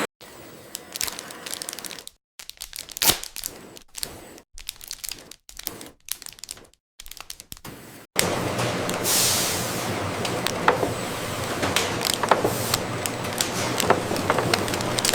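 Scattered sharp cracks and snaps with short silent gaps, then about eight seconds in a steady machine hum starts, with a brief hiss and repeated clicks over it, typical of running production-line machinery.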